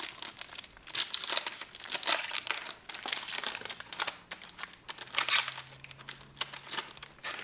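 Wrapper of a trading card pack being torn open and crinkled by hand, in irregular sharp crackles.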